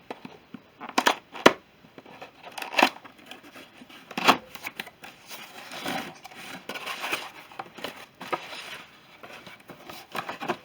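Product packaging being opened and unpacked by hand: irregular cardboard and plastic rustling and tearing, with several sharp knocks and clicks in the first few seconds.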